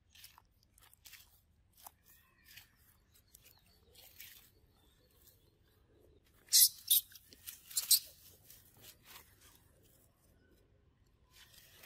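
Dry fallen leaves crackling and rustling as macaques move over the leaf litter, in scattered light rustles with a cluster of louder crunches a little past halfway.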